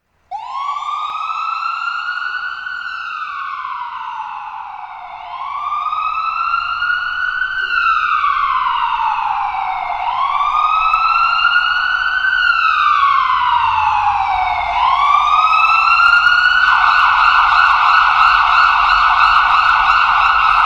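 Ambulance siren wailing, a slow rise and fall in pitch repeating about every five seconds, then switching to a rapid warble near the end.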